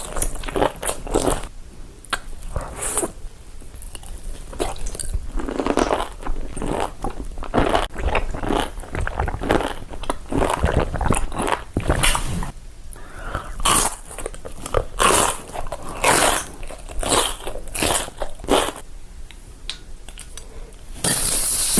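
A person eating Korean food close to the microphone: crunchy bites and chewing in irregular bursts.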